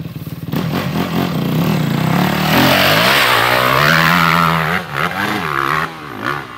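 Dirt bike engine revving close by: it gets loud about half a second in, climbs and holds high for a few seconds, then rises and falls with the throttle and drops away near the end.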